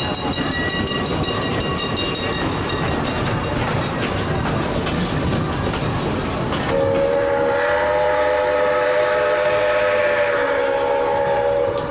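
Train running with a steady rumble and rattle, heard from aboard a moving car. About seven seconds in, the train's whistle sounds as a chord of several steady tones and is held for about five seconds.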